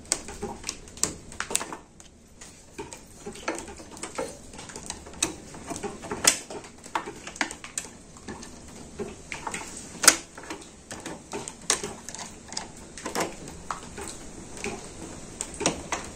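Irregular metallic clicks and clinks of hand tools on a motorcycle drive chain as its master link is worked apart, with sharper knocks about six and ten seconds in.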